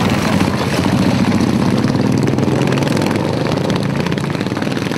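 Racing ride-on lawnmower engine running hard as the mower drives past, a steady buzzing note loudest about a second in and easing off slightly toward the end.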